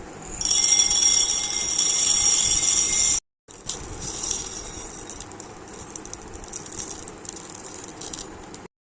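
Cooking sounds from a pan on the stove: a loud rattling hiss for about three seconds, then, after a brief cut, a quieter crackling sizzle with many small ticks.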